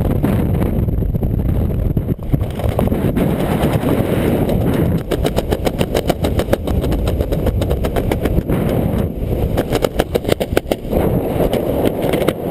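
Wind buffeting the camera microphone under a newly opened parachute: a steady loud rush that breaks into a rapid flutter from about five seconds in until near the end.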